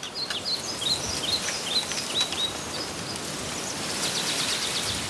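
Small birds chirping over a steady outdoor hiss: scattered short chirps through the first couple of seconds, then a quick run of notes about four seconds in.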